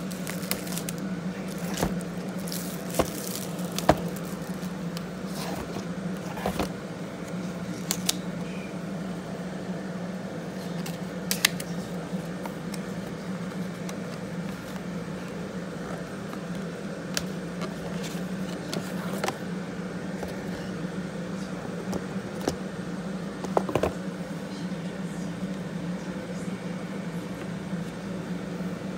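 A steady low hum, with scattered crinkles, taps and rustles of plastic wrap and paperboard as an Apple Watch box is unwrapped and slid open.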